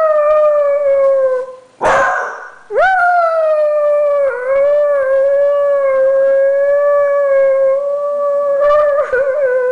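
Beagle baying at her own reflection: a howl dying away in the first couple of seconds, a short sharp bark, then one long, steady howl of about seven seconds that wavers and breaks up near the end.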